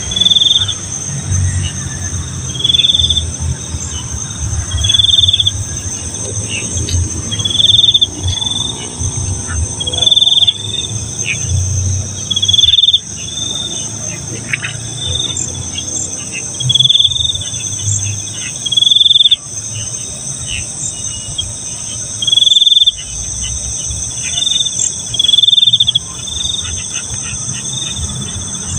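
Night insects and crickets in a chorus: a steady high-pitched drone, with a louder short chirping call repeating about every two seconds, over a low uneven rumble.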